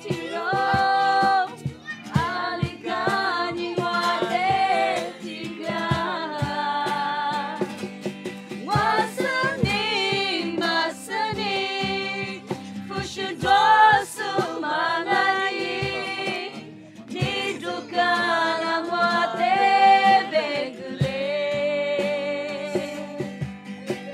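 Music: a song with singing over instrumental accompaniment and a steady beat.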